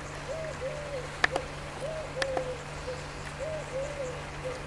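A dove cooing in repeated three-note phrases, two arched coos and a short one, over a steady low hum. A sharp click sounds about a second in and another about two seconds in.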